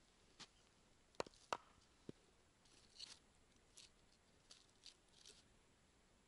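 Near silence broken by scattered faint clicks and short rustles, with two sharper clicks about a second and a half in and a dull knock just after.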